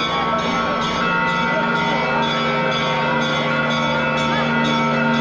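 Church bells ringing in a continuous rapid peal, strokes coming about twice a second, over the voices of a large crowd.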